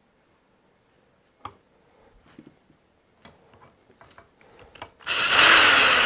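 Light metal clicks and knocks as parts are handled in a machine's screw box, then about five seconds in a cordless drill with a half-inch drive adapter starts up and runs steadily.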